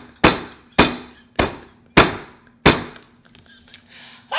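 A hand slapping a tabletop repeatedly: five hard slaps in a steady rhythm, a little under two a second, each with a short ringing tail.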